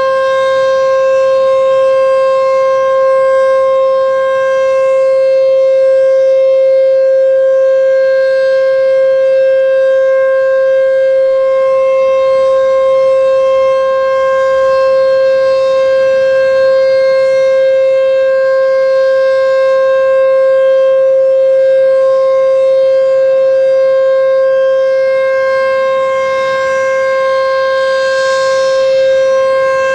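H.O.R. Super-Sirex 50 HP outdoor warning siren sounding the Alert signal: one loud, unwavering tone held at a steady pitch.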